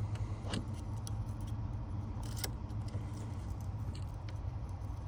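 Small metallic clicks and ticks of a Lishi pick and tension being worked in an old Ford wafer lock, pins being set and released as tension is eased off because one is overpicked. A steady low rumble runs underneath.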